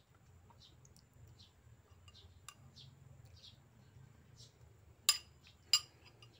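Metal cutlery clinking against a bowl while eating: two sharp, ringing clinks about five seconds in, a little over half a second apart, after a few faint light taps.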